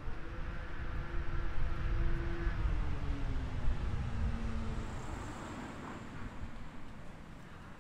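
A motor vehicle passing close by: its engine and road noise swell over the first couple of seconds, the engine note drops in pitch as it goes past, and the sound fades away over the last few seconds.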